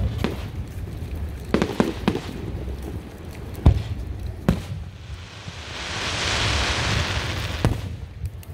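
Aerial firework shells bursting overhead in a series of sharp bangs, the loudest a little under four seconds in. A hiss swells and fades in the seconds after, and one more bang comes near the end.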